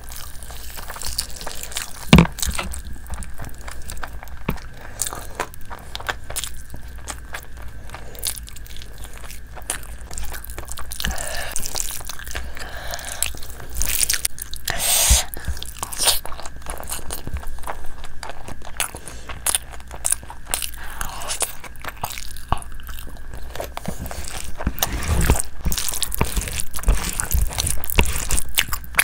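Eating sounds: chewing and mouth smacking, with wet squishes of fingers mixing rice and gravy on the plate. One sharp click about two seconds in.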